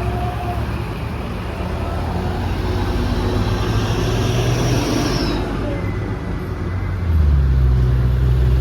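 Truck's diesel engine pulling hard uphill, a steady loud hum that gets louder and shifts in pitch about seven seconds in.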